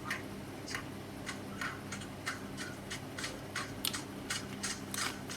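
Close-miked eating sounds of tacos with nacho cheese being chewed: wet clicks and smacks of the mouth, irregular, about three a second, over a faint steady hum.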